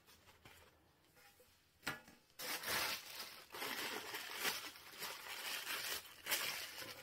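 Crinkly white wrapping rustling and crackling in uneven bursts as it is pulled open by hand around a bunch of fabric flowers, starting about two seconds in.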